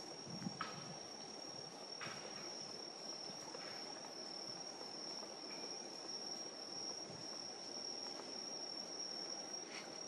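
Crickets singing in one steady, high, unbroken trill, faint overall, with a few soft knocks scattered through it.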